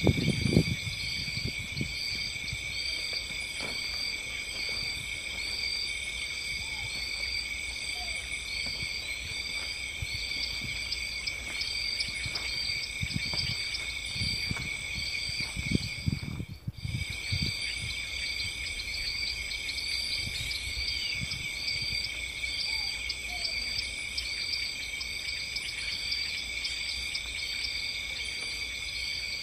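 Insect chorus: a steady high-pitched chirring with a short chirp repeating about three times every two seconds. Low thumps of handling or footsteps come between about 12 and 17 seconds in, and the sound briefly cuts out near the middle.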